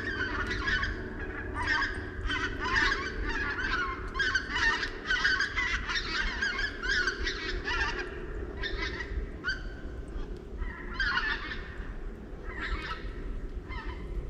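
A flock of geese honking, many overlapping calls at first, thinning out to scattered groups of honks in the second half.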